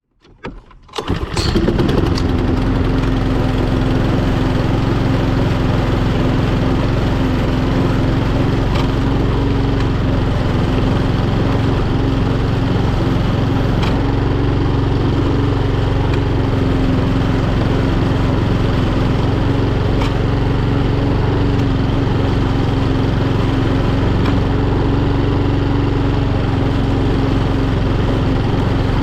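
Etesia Pro46 lawnmower's Honda GCVx170 single-cylinder four-stroke engine running steadily at a constant speed while mowing. The sound rises in over the first second or two.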